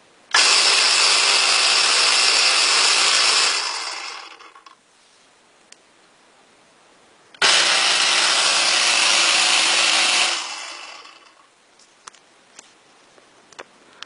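Electric vibrating fire alarm bell ringing loud and steady, its hammer buzzing against the gong, in two bursts of about three seconds each. After each burst the gong rings on and dies away over about a second. A few faint clicks come near the end.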